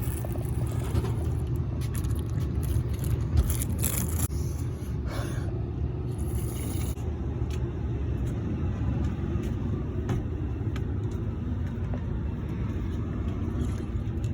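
Steady low rumble of a car in motion, heard from inside the cabin, with a few light clicks and knocks over it.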